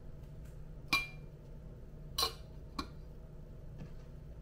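Light clinks of metal and glass from pour-over brewing gear being handled, three of them about a second apart, the first ringing briefly, with a faint fourth near the end. A steady low hum runs beneath.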